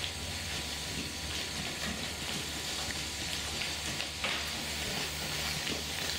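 Steady hiss and low hum, with a few faint soft hoof thuds from a horse trotting on sand arena footing.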